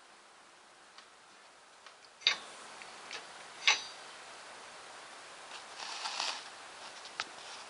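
A series of sharp taps and clicks on a chrome wire shelf rail: two loud ones about two and three and a half seconds in, with fainter ones around them, then a brief scratchy rustle about six seconds in and one last click near the end.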